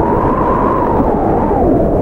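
Blizzard wind howling steadily, its whistling pitch sliding slowly lower, over a low rumble.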